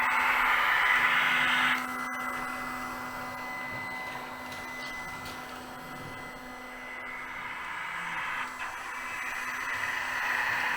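An H0-scale model diesel shunter with a sound decoder pushing a LUX track vacuum car: a steady whirring motor and fan noise with a low hum. It is loud at first, drops abruptly about two seconds in, then slowly builds again.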